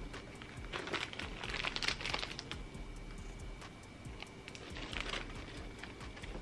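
Faint crinkling of a clear plastic bag of spare laces hanging from a sneaker as the shoe is handled and turned. It comes in two spells of rustling: one about a second in lasting a second or so, and a shorter one about five seconds in.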